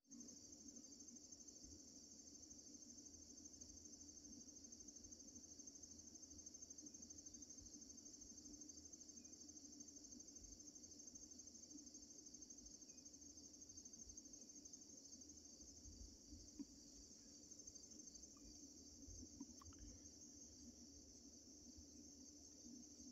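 Faint, steady chorus of insects in a grassy meadow: a continuous high trill with a fine rapid pulse. A low steady hum runs underneath, with a few soft low bumps.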